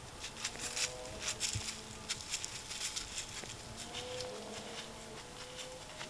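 Whitetail deer stepping through dry grass and leaf litter: a run of short, crisp crackles and rustles, thickest in the first three seconds. A faint hum comes and goes underneath.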